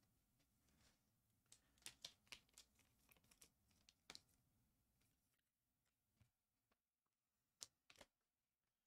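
Near silence, broken by faint scattered clicks and rustles of trading cards being handled: a cluster of soft ticks in the first half and two more near the end.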